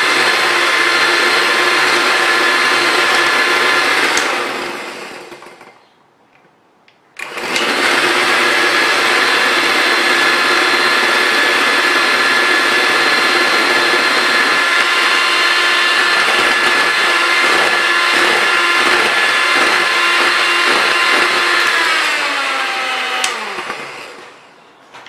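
Electric hand mixer running steadily, its beaters whipping egg whites into foam. It winds down and stops about five seconds in, starts again a second or so later, and near the end winds down with a falling whine.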